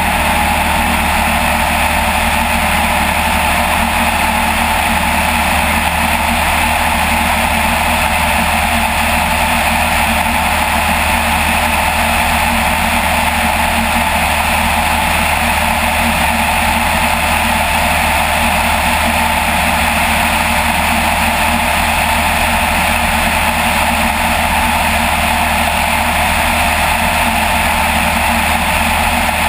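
Light aircraft's piston engine and propeller running steadily in level flight, a constant loud drone with rushing air noise.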